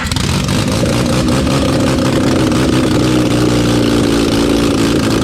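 Mazda 13B Bridgeport-ported rotary engine running loud and raw just after firing up on the key, with no headers fitted so it is blowing straight out of the exhaust ports.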